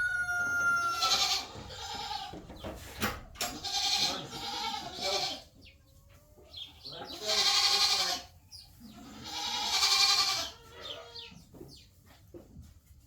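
Dairy goats bleating, about five long, wavering bleats with short pauses between them.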